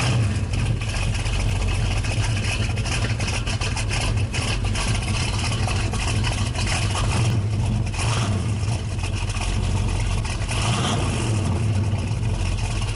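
1967 Pontiac GTO's V8 running through its new exhaust of stock manifolds, 2½-inch pipes, Flowmaster mufflers and 3-inch tailpipes, with a steady, beefy rumble.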